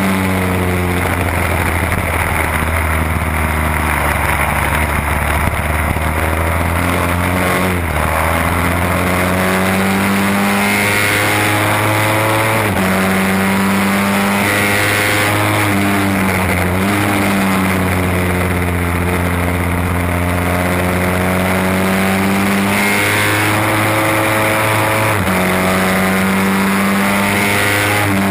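1968 Seeley Norton Commando's 750 cc parallel-twin engine racing flat out, heard from a camera mounted on the bike. Its pitch climbs in long pulls through the gears and drops sharply at each gear change, several times, over a steady rush of noise.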